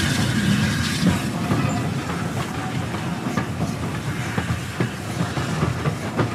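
Carriage of a BR Standard Class 4 steam train running along the track, heard from the front carriage. A steady rumble with irregular clicks and knocks from the wheels over the rail joints.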